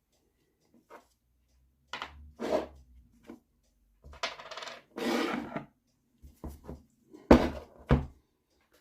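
Metal tools and small steel engine parts clinking and knocking against each other on a workbench, with a short stretch of metal scraping in the middle and the sharpest knock near the end, while an engine is being taken apart.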